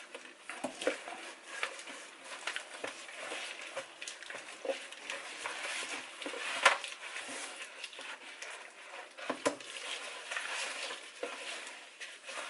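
Kitchen handling noises: scattered clicks, taps and light knocks of a dish and utensils being moved about, with a sharper knock about halfway through and another a few seconds later.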